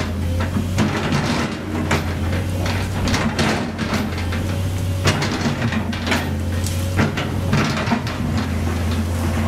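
Sumitomo SH200 hydraulic excavator running steadily with a constant low diesel hum, while its steel bucket knocks and scrapes repeatedly against broken asphalt.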